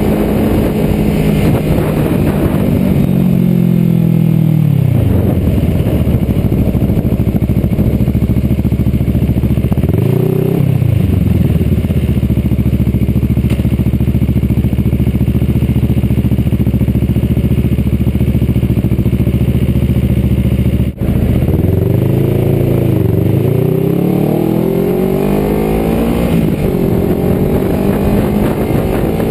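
Kawasaki Ninja 650R's parallel-twin engine through a Two Brothers slip-on exhaust. The revs fall as the bike slows and settle to a steady idle, with a short throttle blip about ten seconds in. After a split-second break in the sound, the revs rise in several steps as it pulls away.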